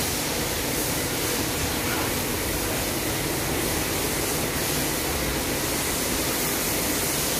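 Steady rushing air noise of large electric ventilation fans, with a faint low hum underneath.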